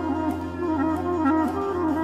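Clarinet in the Epirote folk style playing a slow moiroloi lament melody with quick ornamental turns, over a steady low drone.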